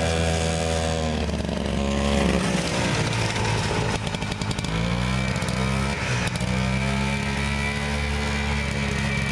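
1968 Scorpion Mark I snowmobile's single-cylinder 277 Sachs two-stroke engine running as the sled is ridden across snow. Its pitch dips and rises a few times as the throttle changes.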